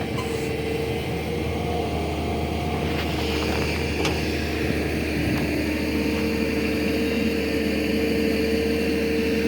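Hydraulic excavator's diesel engine running steadily, with a steady whine over it and a couple of faint ticks about three and four seconds in.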